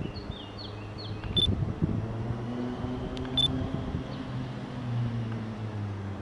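Steady mechanical hum of a railway locomotive, a low drone with a higher held tone above it. Birds chirp briefly near the start, and two short sharp ticks with a brief high note sound about two seconds apart.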